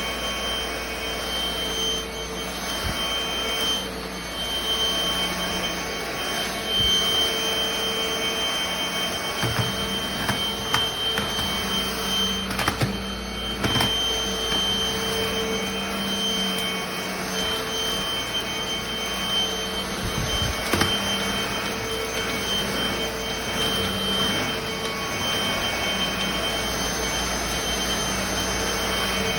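NADALY cordless stick vacuum running steadily, a constant motor whine with a level hum. A few knocks and clicks come about ten to fourteen seconds in and again around twenty seconds in.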